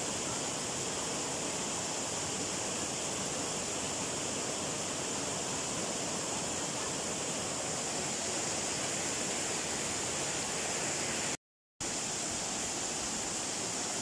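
Waterfall cascading over rocks into a pool: a steady rush of falling water that cuts out for a split second about eleven seconds in.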